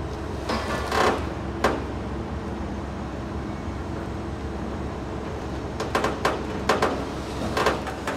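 Workshop noise: a steady low mechanical hum, with scattered sharp knocks and clanks. There are a few knocks in the first two seconds and a cluster near the end.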